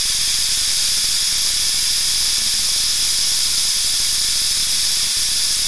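Pneumatic vacuum brake bleeder hissing steadily on shop air as it draws old brake fluid out through the front caliper's bleed nipple during a brake-fluid flush.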